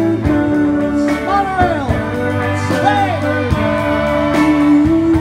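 Electric guitar band music, with long held notes that bend and glide up and down in pitch.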